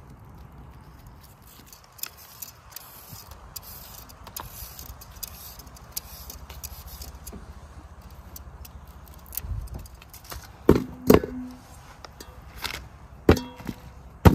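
Small metallic clinks and knocks of kitchen utensils and cookware being handled. Near the end come a few louder knocks, two of which ring briefly.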